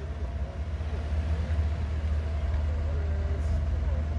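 Heavy vehicle engine running with a steady low rumble, as a truck slowly hauls a large boat on a road trailer.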